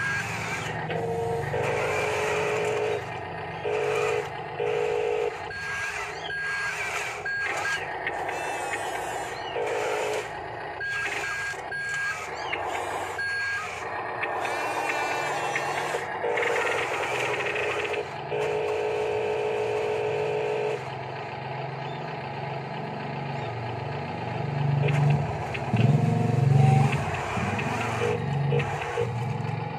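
Huina radio-controlled toy wheel loader running, with a steady low engine hum and bursts of repeated reversing beeps several times. A louder low rumble comes in near the end.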